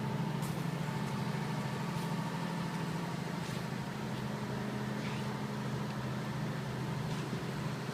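50 kVA diesel generator set in a super-silent sound-proof canopy running at a steady speed: an even, low hum.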